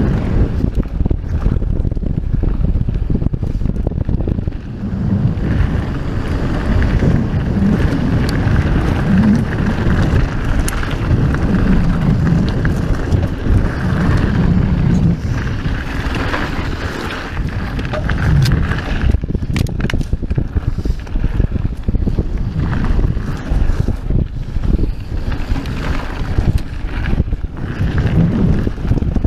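Wind buffeting the camera microphone as a Santa Cruz Megatower mountain bike rides fast down a dry dirt and gravel trail, with the tyres rolling over the ground and frequent small knocks and rattles from the bike on the rough surface.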